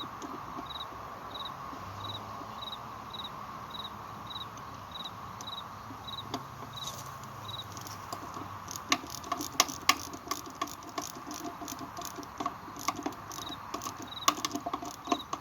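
Ratchet wrench clicking in quick runs from about nine seconds in, snugging up a nut on the pump's diaphragm assembly. A cricket chirps at an even pace, about twice a second, behind it.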